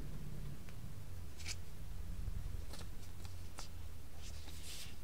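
Scattered light clicks and a couple of short rustles of a trading card and plastic binder pages being handled, over a steady low hum.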